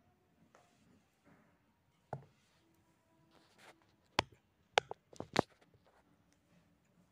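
Hand embroidery: needle and thread worked through fabric stretched taut in a wooden embroidery hoop, with faint rustling and sharp taps, one about two seconds in and four close together about four to five and a half seconds in.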